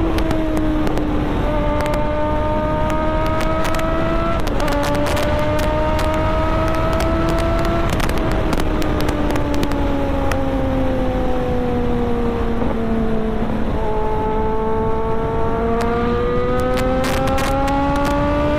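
Kawasaki Z900's 948 cc inline-four running hard at highway speed, about 150–160 km/h, over a rush of wind. The engine note holds mostly steady with small dips, sags gently in the middle as the throttle eases, and rises again near the end as it pulls.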